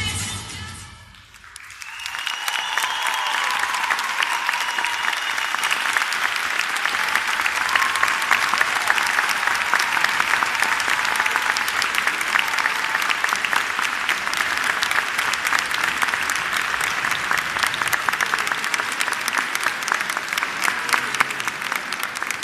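Audience applauding: the clapping swells in about two seconds in, holds steady and starts to taper near the end.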